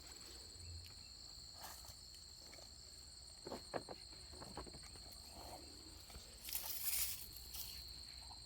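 Insects trilling steadily at a high pitch, faint. A few soft knocks come about three and a half seconds in, and a brief rustling burst about six and a half seconds in.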